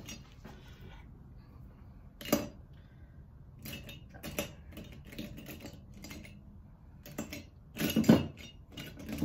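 Light clicks and clatter of small hard objects being handled, a few scattered taps with a louder cluster a little after eight seconds.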